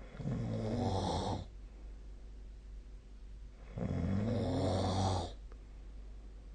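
A sleeping person snoring: two low-pitched snores, each a little over a second long, about three and a half seconds apart, over a faint steady low hum.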